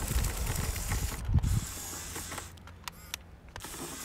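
Small electric RC crawler's motor and gearbox working as its tyres climb over rocks, towing a trailer: mechanical clicking and creaking over a low rumble, quieter for a second or so past the middle.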